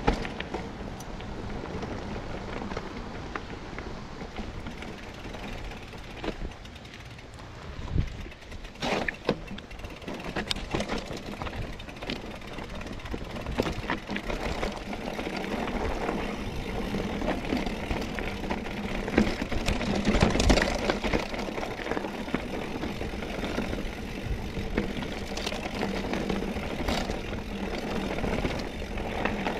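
Scott Spark RC mountain bike ridden over a rough trail: steady tyre and rolling noise with scattered knocks and rattles, the loudest jolts about 8 to 9 seconds in and again around 20 seconds in.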